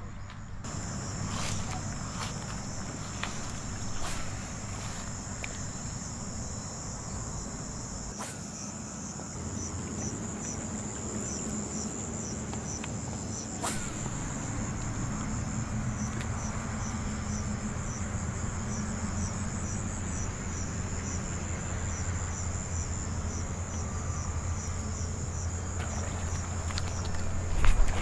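Insects trilling steadily at dusk, one high continuous trill with a second chirp repeating in a regular rhythm, over a low steady hum. A short thump sounds near the end.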